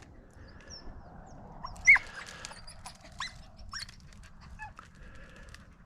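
Hunting dogs yipping in short, high yelps while working rabbits through brush: about five yips, the loudest about two seconds in.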